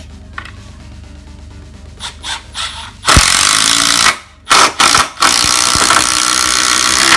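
Milwaukee M12 Fuel brushless 1/4" hex impact driver hammering as it drives a long fastener. It starts with a few short trigger blips, then hammers loudly for about a second, gives a couple of quick bursts, and runs on for about two more seconds before stopping at the end.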